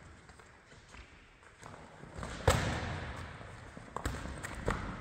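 Thuds of sparring strikes landing, gloves on gloves and headgear, echoing in a large sports hall: one loud hit about two and a half seconds in, then a few lighter hits near the end.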